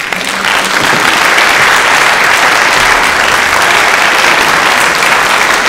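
Theatre audience applauding: dense clapping that breaks out at once and holds steady.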